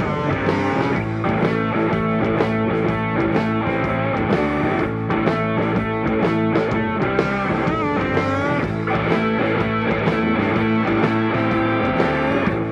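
Background rock music with electric guitar over a steady beat, with a bending guitar line about eight seconds in.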